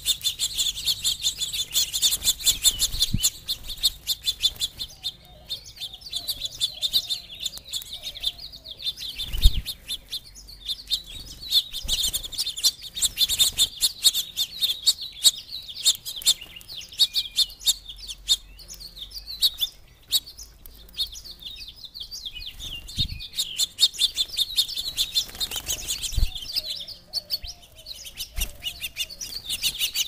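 Small songbirds at a seed feeder, house finches among them, chirping busily and without pause, many high chirps overlapping. A few short low thumps are heard now and then.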